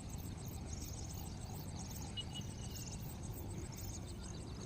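Insects chirping in quick, evenly repeated pulses, about three a second, over a low steady rumble.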